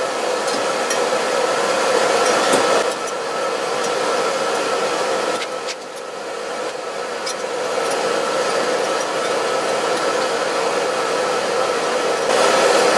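Steady blowing, hissing noise from a running electric appliance, with a steady hum in it and a few light knocks and clicks of handling.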